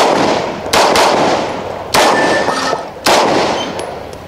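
Three loud pistol shots about a second apart, each trailing off over roughly a second, fired by a competitor shooting a USPSA stage.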